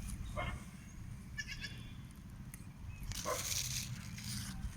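Animal calls: a short one about half a second in and a longer, louder one about three seconds in, over a low rumble.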